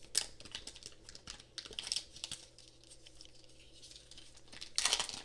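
Small clicks and taps of hands handling a plastic Apple USB-C power adapter, with a short rustle near the end.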